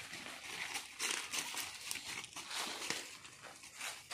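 Leaves rustling and crackling irregularly: bunched yanang vine leaves being pulled and handled, and steps through dry leaf litter.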